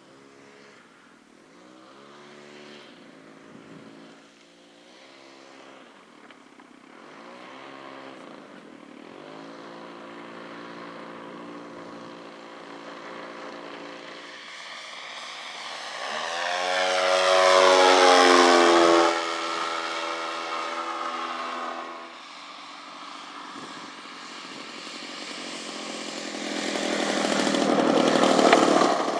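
Small engines of radio-controlled scale model airplanes running on the runway, the pitch rising and falling with the throttle. About halfway through it grows loud and the pitch sweeps down as a plane passes close. It is loud again near the end as one runs up close by.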